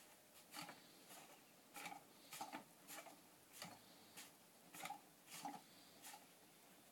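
Faint soft clicks and rubs, roughly every half second and not quite regular, from wet hands working a clay pot as it turns on a potter's wheel.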